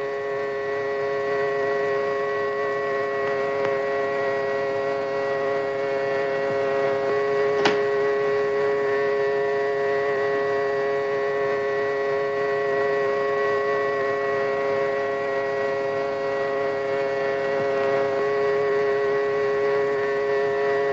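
Car horn blaring without stopping, one steady, unchanging chord of several pitches, with a single sharp knock about eight seconds in.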